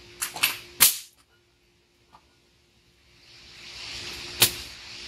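Sharp metallic clicks and a clank from a lawn mower's blade-brake assembly parts being handled, the loudest about a second in and another near the end. A faint steady hiss comes up in the second half.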